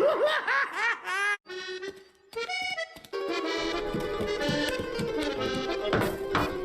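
Cartoon soundtrack: a quick run of wobbling up-and-down pitch glides, then accordion music playing on, with a short break near the three-second mark.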